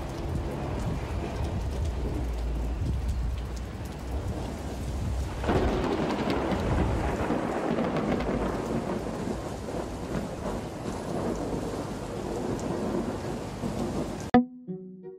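Thunderstorm with steady rain and a long low rumble of thunder; about five seconds in the storm swells suddenly louder and stays loud. It cuts off abruptly near the end into string music.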